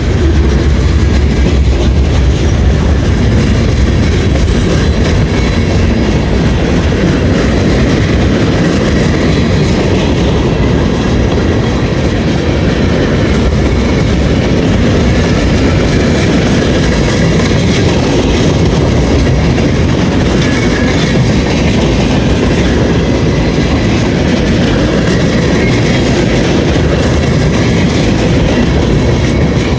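Freight train cars rolling slowly past, with a steady loud rumble and the clickety-clack of wheels over the rail joints.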